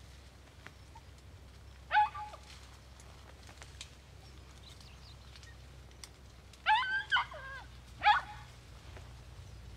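Hunting podenco hounds yelping in short, pitched cries: one about two seconds in, then a cluster of three or four near the end, some falling in pitch as they end. The hounds are giving tongue while trailing a rabbit.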